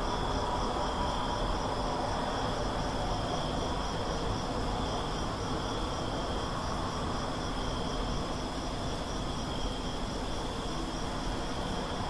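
Steady wash of road traffic at night, tyre and engine noise blended into one continuous rumble and hiss with no single vehicle standing out. Above it runs a steady high-pitched chirring of insects.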